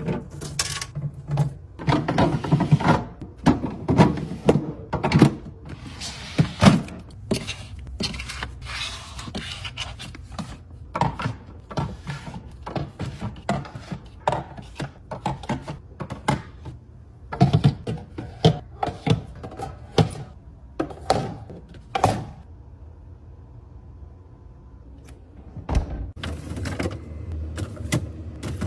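Groceries and plastic containers being handled and set down while a fridge is restocked: a run of clunks, taps and rattles over a low hum, easing off for a few seconds near the end.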